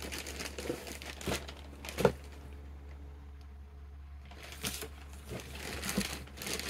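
Plastic packaging crinkling and rustling as items are handled, in two spells with a quieter pause in the middle. A single sharp knock about two seconds in is the loudest sound.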